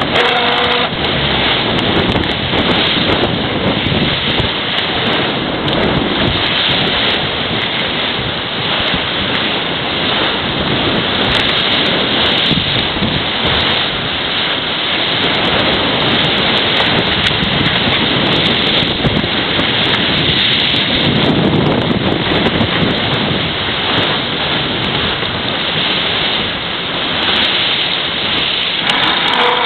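Steady, loud wind buffeting the microphone over the rush of water and spray along the hull of a Farr 55 racing yacht sailing fast downwind.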